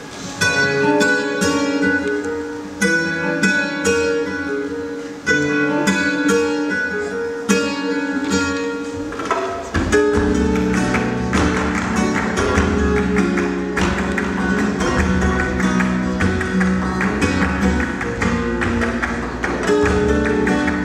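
Flamenco guitar music played over the hall's loudspeakers. Sharply plucked guitar notes at first, then about halfway through the music fills out with a steady bass underneath.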